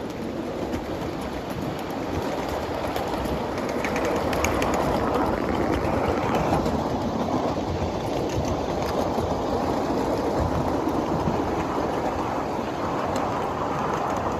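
Small 7.5-inch gauge ride-on railroad cars rolling along the track: a steady rumble of steel wheels on rail, with a few faint clicks.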